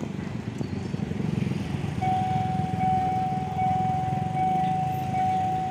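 Diesel locomotive engine rumbling and growing louder as it approaches. About two seconds in, a steady high-pitched tone joins and holds.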